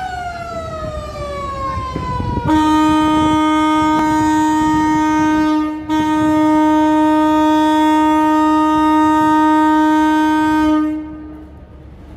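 Horn of a moored river passenger launch: a loud tone sliding down in pitch for about two and a half seconds, then a long steady blast with a brief break about six seconds in, cutting off near the end.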